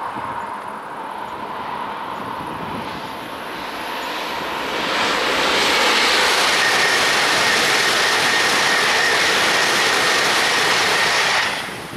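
Eurostar high-speed electric train approaching and passing at speed: a rushing noise that grows louder about five seconds in and holds with a steady high whine, then falls away sharply near the end as the last coaches go by.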